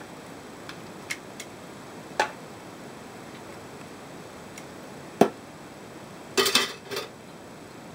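Metal kitchen tongs clicking and tapping against a plastic bowl and a china plate while marinated beef short ribs are lifted across. Scattered light clicks, a sharper knock about five seconds in, then a quick run of clatter near the end.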